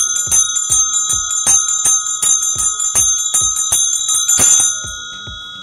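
A pair of joined bronze puja bells (jodi gante) shaken by hand, the clappers striking about four times a second in a loud, bright ringing. About four and a half seconds in the shaking stops and the bells ring on, slowly fading.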